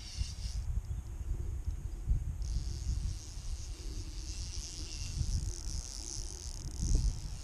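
Wind buffeting the action camera's microphone with a steady low rumble. Over it, a fly reel's click ratchet gives a high buzz: briefly at the start, then again from about two and a half seconds in, as line runs off or is wound back during a trout fight.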